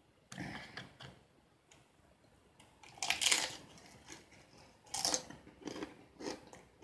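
A person biting into and chewing a fried crab rangoon, with crisp crunches: a loud crunch about three seconds in, another about five seconds in, then a few smaller crunches.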